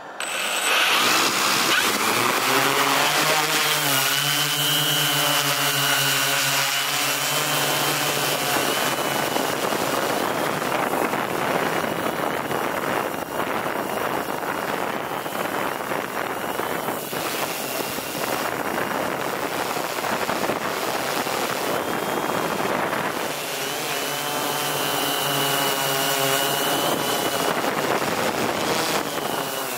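M690L multirotor drone's electric motors and propellers spinning up abruptly at the start and then flying, a loud, steady buzzing hum with a thin high motor whine. The pitch wavers and shifts as the throttle changes.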